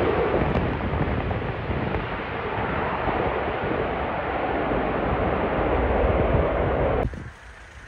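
Loud jet noise from an airliner landing close by, an even rushing roar that cuts off suddenly about seven seconds in, leaving a much quieter background.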